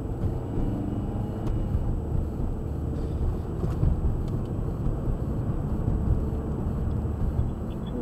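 Car driving on a snowy road, heard from inside the cabin: a steady low rumble of tyres and engine, with a few faint ticks about four seconds in.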